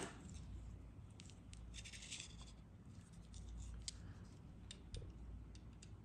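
Faint handling sounds: small clicks and scrapes as a steel caliper's jaws are slid and fitted around a stainless steel watch case by gloved hands.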